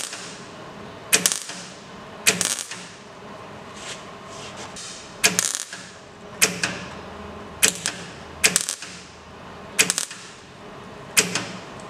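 MIG welder laying short stitch-weld bursts on car body sheet metal, about nine sharp crackling bursts roughly a second apart, each cut off after a fraction of a second. The weld is being built up to fill a crater in the panel.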